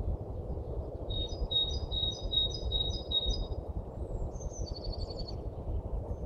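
A songbird singing: a run of about seven clear, evenly repeated notes, then a quicker, higher phrase that falls slightly, over a steady low rumble.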